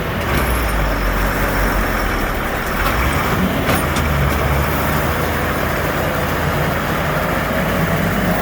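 Diesel tractor on dual wheels running steadily under load as it pulls a loaded grain wagon out of soft, rutted ground.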